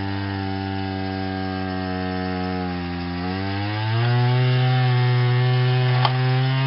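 Petrol two-stroke chainsaw running at a steady high speed, driving the truck's alternator by a belt to charge the batteries. Its pitch sags briefly about three seconds in, then climbs to a higher, louder note a second later. A single sharp click comes near the end.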